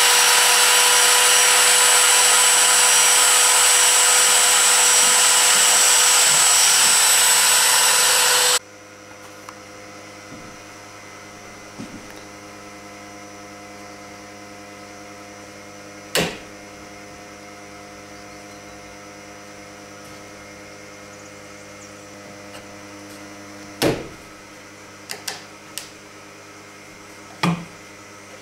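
A loud electric shop-machine motor runs steadily with a fixed whine, then cuts off abruptly about eight and a half seconds in. A quieter steady hum remains, broken by a few sharp clicks and knocks.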